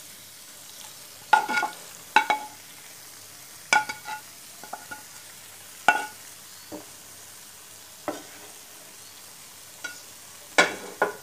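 Sharp ringing knocks of a steel bowl and spoon, every second or two, as soft mawa is tipped and scraped out into a non-stick frying pan. Under them, a faint steady sizzle from the pan on a low flame.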